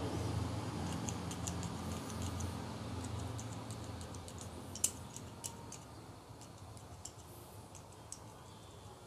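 Light metallic clicks and ticks of a screwdriver tip pushing the spring-loaded carbon brushes in their brass holders on an electric power steering motor's new brush plate, checking that the brushes move freely; one sharper click about five seconds in. A low hum fades in the background over the first few seconds.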